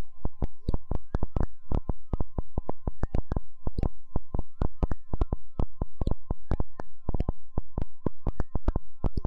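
Electronic outro of a dark trap beat: rapid clicking percussion with deep low hits, under a steady synth tone and a second synth tone that wobbles up and down about every two seconds like a slow siren.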